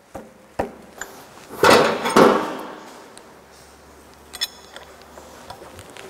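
Metal hand tools clinking and scraping as a mechanic works on a bench-mounted car engine: a few sharp clicks, a louder scraping rattle about two seconds in, then a couple of ringing metallic clinks near the end.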